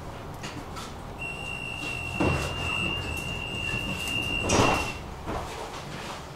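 A tram's door warning tone beeps steadily for about four seconds while the sliding doors work, with a thud about two seconds in and a louder thud as the tone stops, likely the doors shutting. Low running rumble of the tram underneath.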